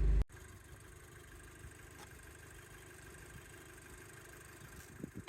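Audi TT engine idling, a loud low rumble heard from inside the cabin, which cuts off abruptly about a quarter of a second in. A faint, steady low hum with a thin steady tone follows, with a couple of light knocks near the end.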